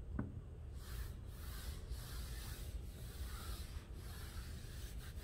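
Faint dry-erase eraser wiping marker off a whiteboard in a series of rubbing strokes, starting about a second in.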